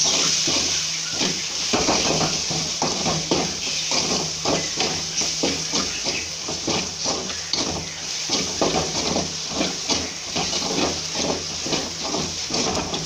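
Onion, tomato and green chilli masala sizzling in an aluminium kadai while a spatula stirs and scrapes it in quick, regular strokes, about two a second; the turmeric, chilli powder and salt have just gone in and are frying.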